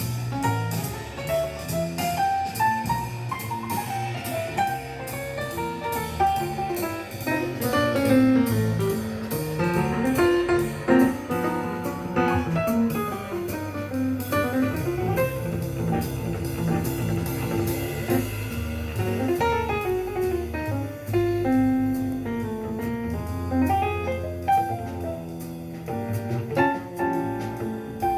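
Jazz music played back through a single-ended Miniwatt EL3N pentode valve amplifier: piano runs sweep up and down over stepping bass notes and drums with a steady cymbal tick.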